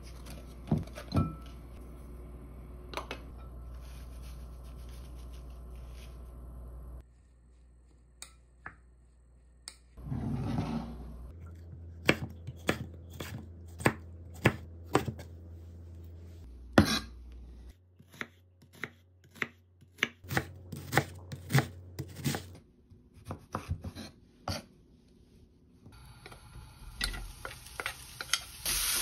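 Chef's knife chopping vegetables on a wooden cutting board: a long run of sharp, irregular knocks. Near the end, meat starts sizzling in a hot frying pan.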